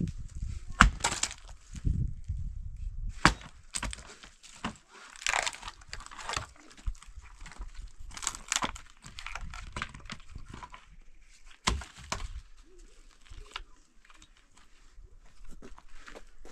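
Axe chopping dry firewood: several sharp strikes into the wood, with splintering and cracking as pieces are split and torn apart between them.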